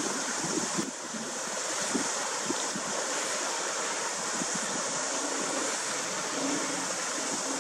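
Wind and a choppy sea washing against a rocky shore, a steady rushing hiss, with wind buffeting the microphone in the first couple of seconds.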